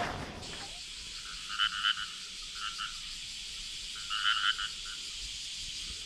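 Short rasping, croak-like animal calls in three clusters over a steady high hiss of outdoor ambience.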